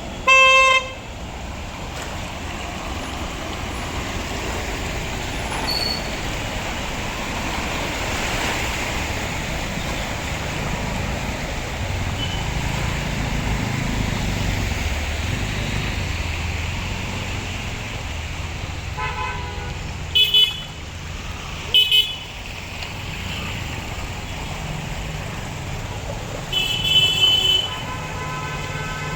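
Steady road traffic with vehicle horns honking: a loud horn blast right at the start, two short toots about two-thirds of the way through, and a longer honk near the end.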